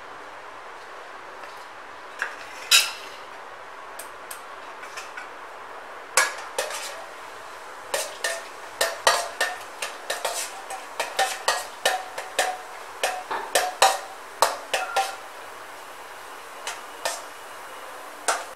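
Steel spoon clinking and scraping against a stainless steel kadai as cashews are stirred in hot ghee: a couple of knocks about two seconds in, then quick clinks, several a second, from about six to fifteen seconds in. A faint steady sizzle of the frying cashews runs underneath.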